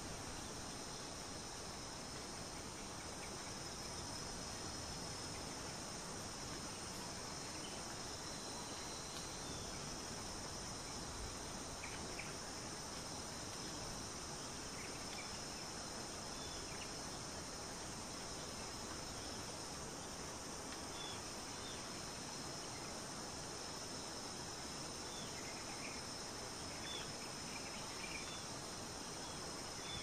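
Steady, high-pitched chorus of insects in a nature ambience, with a few faint short chirps scattered through the later part.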